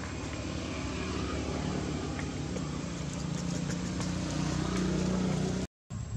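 A motor engine running steadily with a low drone, growing a little louder, then breaking off in a brief silent gap near the end.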